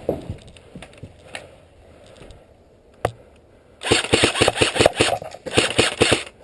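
Airsoft electric gun firing on full auto: a fast, even string of sharp shots starts about four seconds in, breaks off briefly, then a second burst follows.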